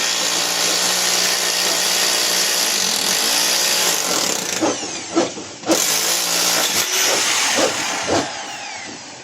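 Power tool running loudly and steadily with a constant hum underneath; about five seconds in it eases off for a moment and starts again, with a few knocks in the second half before the sound fades near the end.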